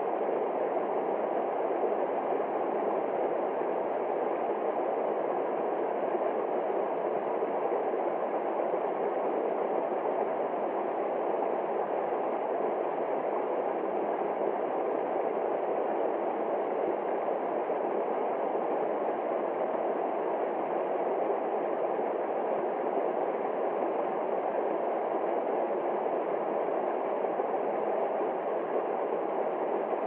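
Small waterfall cascading over rocks into a pool: a steady, unbroken rush of water.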